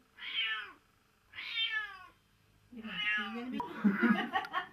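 A cat meowing three times, each call about half a second long and falling in pitch, followed near the end by a busier stretch of sound with a few sharp clicks.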